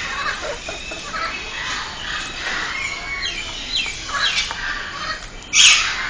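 Parrots chirping and calling in quick, overlapping short calls, then one loud, harsh squawk about five and a half seconds in.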